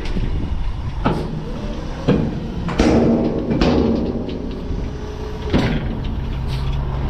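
Heavy diesel equipment running steadily, with about five sharp metallic bangs and clanks over the engine noise.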